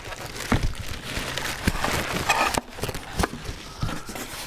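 A cardboard box holding a plunge router being handled and shifted: rubbing and scraping of cardboard with several dull knocks spread through the few seconds.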